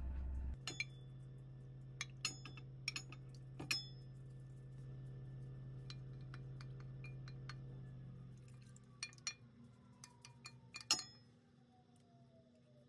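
A glass food container clinking against a cooking pot as leftover tteokbokki is tipped and scraped out of it: a handful of sharp clinks in the first four seconds. Around ten seconds in, a few more knocks as the food is stirred in the pot with a wooden spatula, over a low steady hum that fades out near the end.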